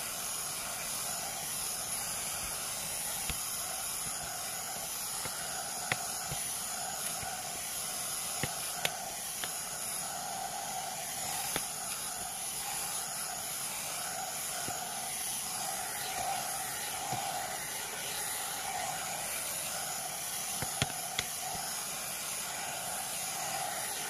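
A 3-in-1 hot air brush (hair dryer brush) running steadily as it is drawn through hair: a constant hiss of blown air over a faintly wavering motor hum. A few brief clicks sound here and there.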